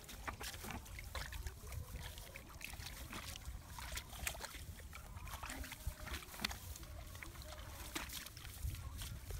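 Hands sloshing and squelching through shallow muddy paddy water while groping for fish by hand, with scattered small splashes and clicks throughout.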